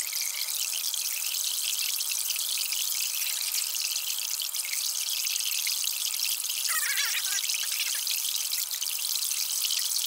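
Water pumped through a compost heating loop running from its outlet in a steady splashing hiss. A brief squeaky chirp comes about seven seconds in.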